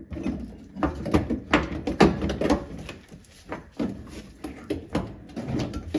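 Irregular clicks and knocks of metal car parts being handled while working the Karmann Ghia's pedal assembly and cables loose, with the sharpest knocks about one and a half and two seconds in.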